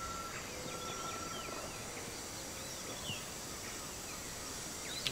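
Forest ambience: scattered short bird chirps over a steady outdoor hiss, with a long thin high tone held for the first two seconds.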